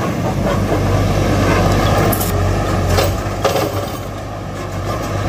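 Diesel engine of an earthmoving machine running steadily with a low hum, with a few short knocks or clanks about two, three and three and a half seconds in.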